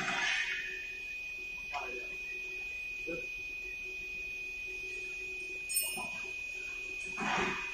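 A steady high whine with a fainter low hum under it, and a few soft clicks and knocks of metal parts being handled as a plotter's steel stand leg is fitted to its crossbar.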